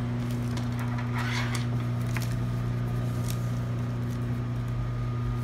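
A steady low electric hum runs throughout, with soft rustling and a few light clicks as cotton muslin fabric is shifted and smoothed by hand.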